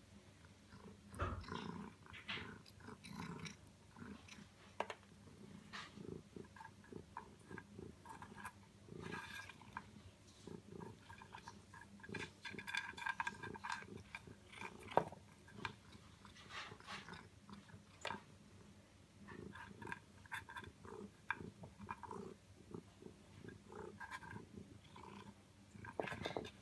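A cat eating small chunks of food from a plastic bowl: faint, irregular chewing with small clicks.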